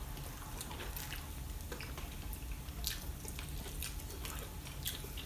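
Wet eating sounds: scattered short mouth clicks and smacks of chewing, over a low steady background hum.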